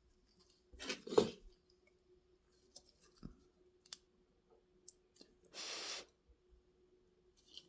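Small clicks and taps from tools and wires being handled during soldering work, with a louder knock about a second in and a short hiss of about half a second near six seconds. A faint steady hum runs underneath.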